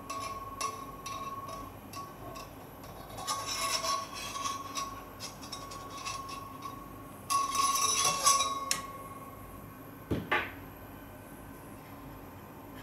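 Metal scraping and clinking as a screwdriver shaft rams the projectile down the thin metal barrel of a home-made LPG rifle, in two longer scraping stretches with small clicks between, over a faint steady whine that stops about nine seconds in. One short knock about ten seconds in.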